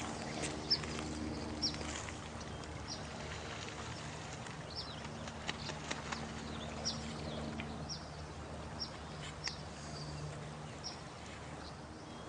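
Nighttime nature soundscape: a steady rush like running water, with short high chirps repeating every half second to a second, each falling slightly in pitch. Scattered sharp clicks and a low steady hum of a few tones that fades in and out lie underneath.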